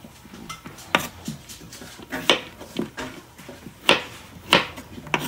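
Kitchen knife chopping Italian gourd on a cutting board: sharp knocks of the blade on the board, roughly one a second.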